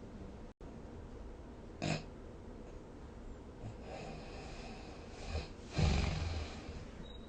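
Snoring during sleep, over a steady background hiss: a short snort about two seconds in, then a louder, rough snore near the end.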